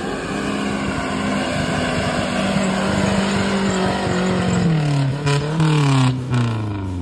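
Off-road 4x4 SUV engine revving hard, held at a steady high pitch for about four seconds, then the revs drop away in steps over the last two seconds.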